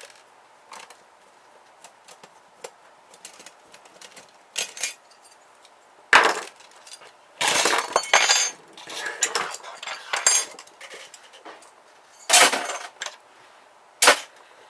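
Clinks, knocks and clatter of a small printer's metal and plastic parts being handled and pulled apart during disassembly, with a few louder clattering impacts about midway and near the end.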